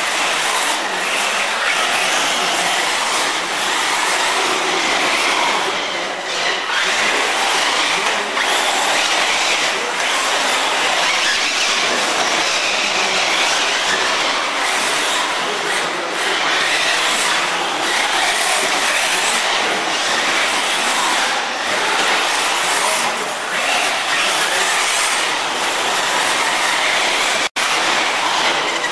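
Electric brushless 1/8-scale RC buggy (Bergonzoni R1) running on a loose dirt track: a steady, gritty whirr of drivetrain and tyres on dirt that breaks off for a moment near the end.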